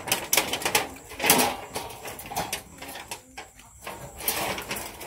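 Irregular run of sharp clicks and clatter from a meal: tableware and eating noises, a quick knock or tap every fraction of a second with uneven gaps.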